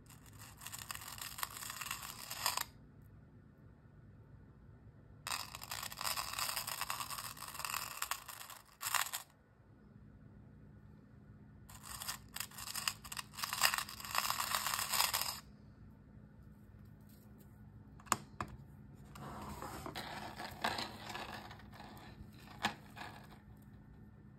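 Links of a solid 14k gold anchor chain rattling and clinking as gloved hands handle it on a steel scale platter. The sound comes in four bursts of a few seconds each, with a couple of sharp clicks between the third and fourth.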